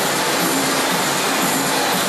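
Steady rushing splash of pool water churned by a class of people exercising in it, with a music track's beat faintly underneath, about twice a second.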